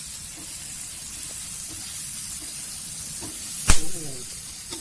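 Grasshoppers and crickets sizzling and hissing in a wok as the last of their cooking water boils off. A single sharp knock sounds about three-quarters of the way through.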